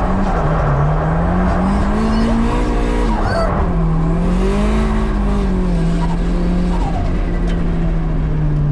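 Drift car's engine heard from inside the cabin, its revs rising and falling again and again through a drift, with tyre noise underneath. Near the end the engine note drops as it comes off the throttle.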